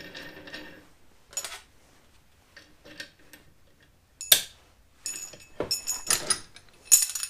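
A large steel nut spun along a threaded bolt clamped in a vise, rattling rhythmically and stopping about a second in, then sharp metallic clinks and rings as brass washers and the nut are handled and fitted onto the bolt, the loudest about four seconds in and a cluster near the end.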